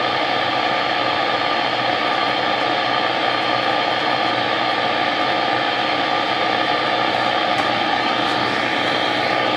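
Zenith AA5 tube radio's speaker giving a steady, loud static hiss, with no station tuned in.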